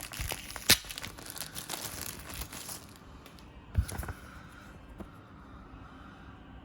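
Paper and packaging rustling and crinkling as the instruction booklet is handled, with a sharp tap just under a second in. A single knock comes near four seconds, then only faint handling.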